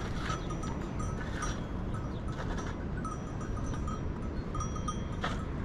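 Small bells on a grazing flock of sheep and goats clinking irregularly over a steady low rumble, with a few short sharper sounds, the strongest about five seconds in.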